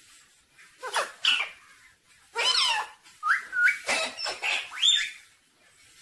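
Pet ring-necked parakeet calling: a run of short, high-pitched squawks and chattering notes, some gliding sharply upward. One call comes about a second in and a busier string follows from about two to five seconds in.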